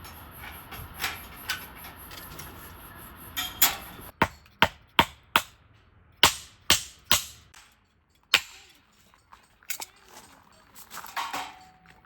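A steady high hiss for the first few seconds, then a run of sharp, separate strikes, coming in quick groups of three or four about half a second apart.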